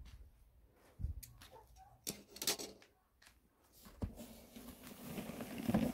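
A plastic cat-food sack being shifted inside a cardboard box: a few knocks and rustles, then plastic crinkling that builds up near the end.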